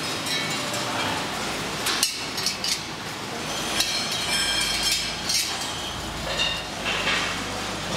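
Chrome-plated steel handlebar tubes clinking and knocking against each other and their wire hangers as they are handled, a string of irregular metallic clinks, some ringing briefly, over a steady workshop hum.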